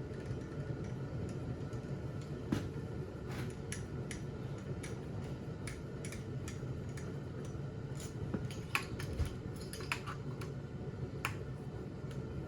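Irregular small metal clicks and taps as the cylinder bolts of a Jonsered 2065 chainsaw are put in by hand, over a steady background hum.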